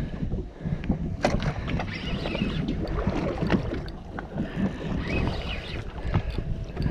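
Wind rumbling on the microphone aboard a boat at sea, with scattered light clicks as a spinning reel is cranked to bring in a hooked fish.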